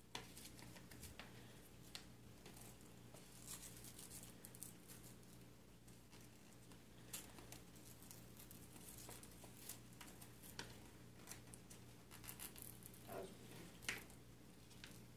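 Faint paper rustling and crinkling from small paper packets being handled and unfolded, with scattered light clicks over a low steady room hum.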